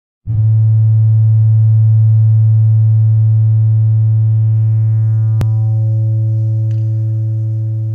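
A single loud, low electronic drone note that starts about a quarter second in and is held, fading only slowly as its brighter overtones die away, with a single sharp click about five seconds in.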